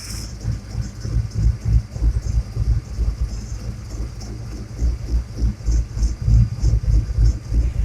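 Small-block Ford Windsor V8 idling unevenly, with a pulsing, loping beat. The owner puts the roughness down to a vacuum leak: unmetered air drawn past the injector O-ring on cylinder 7.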